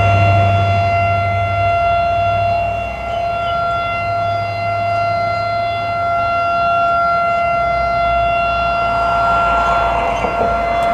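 Civil defense tsunami warning siren sounding one loud, steady tone that does not rise and fall, signalling a tsunami warning.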